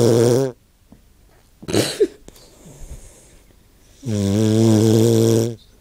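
Dog snoring: a long, even-pitched snore ends about half a second in, a short noisy breath comes near two seconds, and a second snore of about a second and a half starts about four seconds in.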